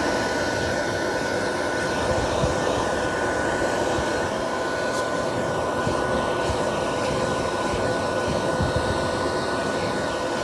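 Professional stand-mounted dog grooming dryer running steadily: a rush of blown air with a thin, steady motor whine.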